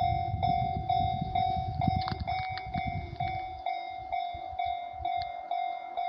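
Japanese level-crossing alarm ringing about twice a second over the low rumble of a Shinano Railway 115 series electric train passing at speed. The train's rumble fades about three and a half seconds in, leaving the crossing bell ringing on.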